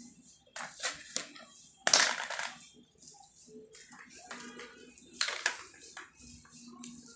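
Scattered knocks and clatters of objects being handled, the loudest about two seconds in, trailing off in a short rattle.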